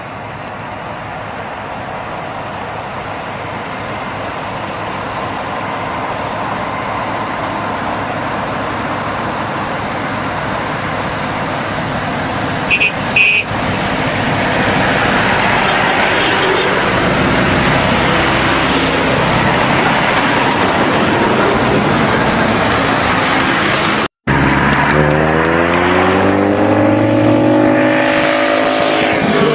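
Vehicle driving noise on a road: a steady rush of wind and road noise grows louder, with two short high beeps about halfway through. After a brief cut, an engine's pitch rises and falls.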